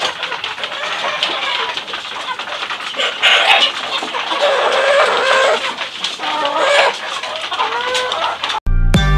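Young kampung chickens clucking and calling, with several drawn-out calls that rise and fall in pitch in the second half, over a run of quick sharp taps from beaks pecking feed in the trough. Music starts abruptly near the end.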